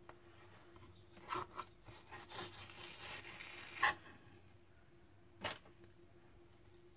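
Chef's knife scraping against a plastic cutting board while cutting the skin off a salmon fillet: a rasping stretch of scraping for a few seconds, then a sharp knock of the knife on the board near four seconds and another about a second and a half later.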